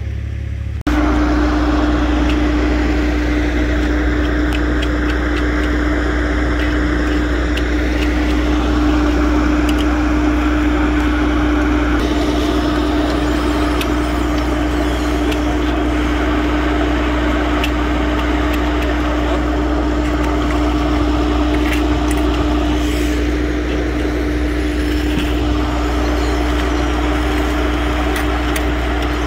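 Heavy diesel paving equipment running steadily under load, a constant low rumble with a steady whine over it, beginning abruptly about a second in.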